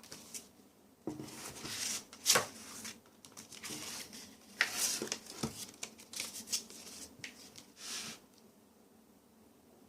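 Paper and plastic packaging being handled: irregular rustling and crinkling with sharp clicks, the loudest about two seconds in, dying away near the end.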